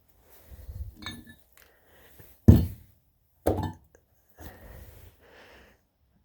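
Metal tools and parts clinking and clanking during work on a tractor, with two louder clanks about two and a half and three and a half seconds in.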